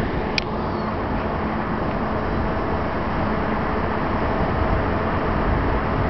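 Steady outdoor rumble of city traffic, with a brief high click about half a second in.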